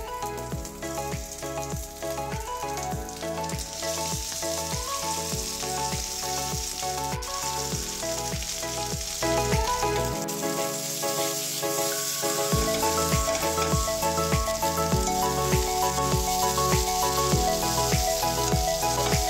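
Cumin seeds, peanuts and ginger sizzling in hot oil in a stainless steel pan, with boiled potato chunks then tossed in. The sizzle gets louder about halfway through. Background music with a steady beat plays throughout.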